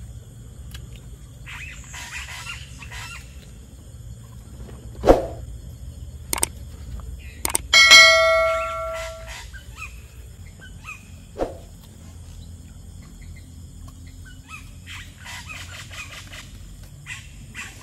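A sharp click and then a bright bell-like ding about eight seconds in, the sound effect of an on-screen subscribe-button animation, ringing out over about a second and a half. A few sharp knocks come before it, and faint scattered clicks fill the rest.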